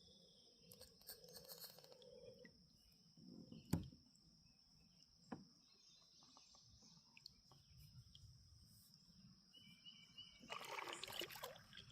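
Near silence from a drifting kayak on a creek: faint water sounds, one sharp knock about four seconds in and a smaller one a second and a half later, over a faint steady high tone. A short hiss comes near the end.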